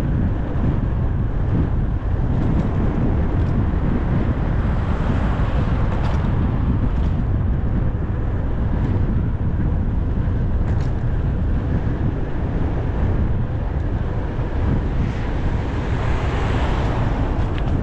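Wind buffeting the microphone of a handlebar camera on a moving bicycle, a steady low rumble. A car passes near the end.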